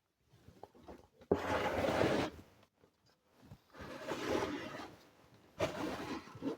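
Three bursts of scraping and rubbing, each about a second long, the first starting sharply: handling noise rather than a running motor.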